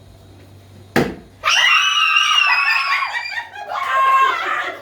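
A sharp knock about a second in, then a person screaming loudly on a high, held pitch for about three seconds.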